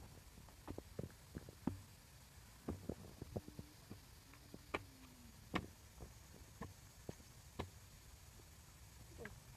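Faint, scattered clicks and soft wet squelches of movement in shallow muddy water and wet mud, with no steady sound beneath.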